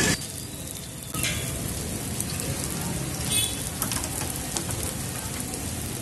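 Potato tikki patties sizzling in hot oil on a large flat griddle: a steady crackling hiss that gets a little louder about a second in.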